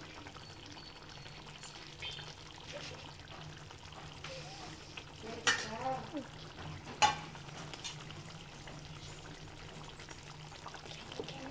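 Thick paneer gravy simmering and bubbling in a kadai, with two sharp metal clinks near the middle, about a second and a half apart.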